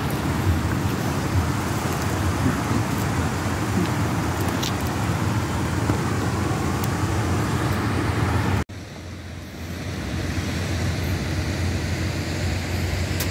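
Steady low rumbling outdoor background noise. It breaks off abruptly about eight and a half seconds in, then comes back somewhat quieter.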